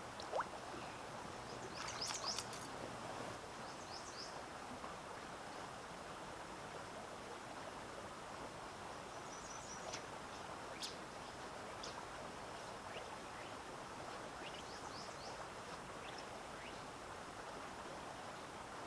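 Scattered short bird chirps over a steady outdoor hiss, with a small splash of water right at the start as a trout is released from a hand.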